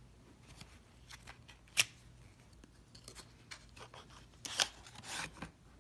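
Trading cards and their paper packaging being handled: scattered sharp clicks, the loudest about two seconds in, and a short flurry of rustling near the end.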